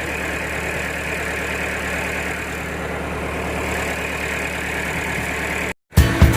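Vehicle engine idling steadily with an even low throb, cut off abruptly near the end, where music begins.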